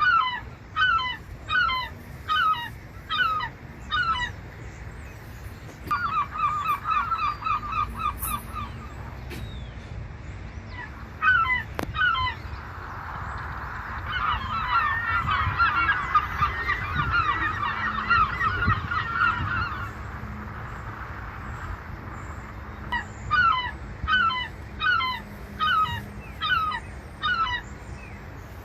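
Gulls calling. A series of loud, evenly spaced calls opens and closes the stretch, with a quick run of short chattering notes between them. In the middle, many gulls call over one another for several seconds.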